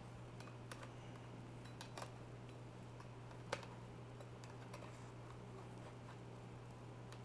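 Faint scattered clicks and taps of a chef's knife and a metal cake server against a fluted metal tart pan as a slice of tart is cut and worked loose, the sharpest about three and a half seconds in, over a low steady hum.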